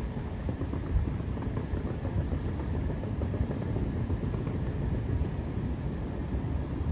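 Wind rumbling on the phone's microphone, with a brief louder thump about a second in.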